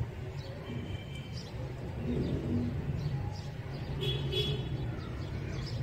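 Small birds chirping in short high calls, a brief run of them about four seconds in, over a steady low background rumble.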